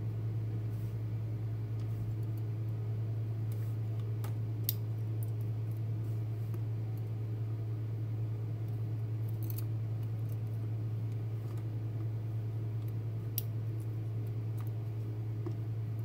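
Steel tweezers handling the small driver pins and springs of an Assa Twin 6000 lock: three light, sharp metallic clicks, spaced several seconds apart, over a steady low hum.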